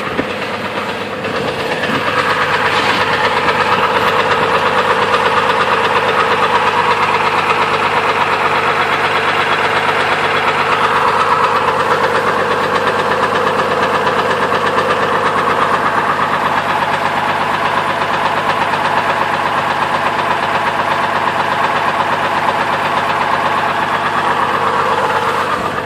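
2002 Chevrolet Trailblazer's 4.2-litre inline-six running with the accessory belt off, a rapid steady knock in time with the engine. The knock remains with the belt removed, so it is not from the water pump or other belt-driven parts: rod knock.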